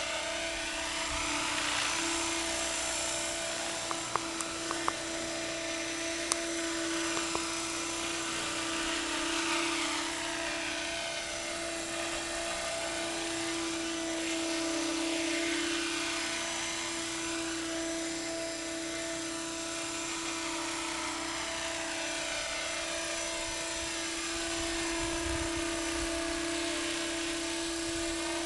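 Thunder Tiger Innovator MD 530 radio-controlled model helicopter running: a steady, high whine from its motor and spinning rotors that holds one pitch, over a rushing hiss. It swells and fades gently as the model moves about, with a few faint clicks about four to seven seconds in.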